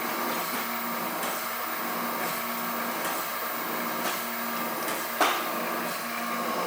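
Chevalier FSG-1020AD surface grinder running in its automatic cycle during the spark-out passes, its wheel spindle and hydraulics humming. The hum breaks off and returns roughly every second as the table reciprocates. A sharp knock comes about five seconds in.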